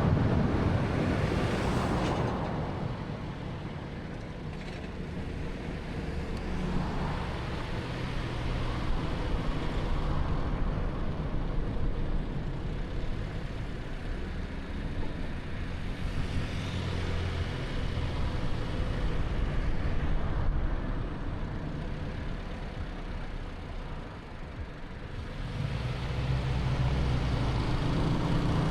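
A 2013 Honda Fit with a 1.3-litre engine being driven: steady engine hum with tyre and road noise that rises and falls with speed. It is louder at the start, quietens around four seconds in and again just before the end, then swells again in the last few seconds.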